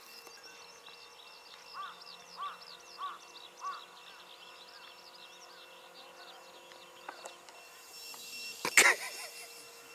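Radio-controlled helicopter hovering low, its rotor and motor giving a faint steady hum, while small birds chirp over it, with a run of four evenly spaced chirps about two to four seconds in. A brief louder sound breaks in near the end.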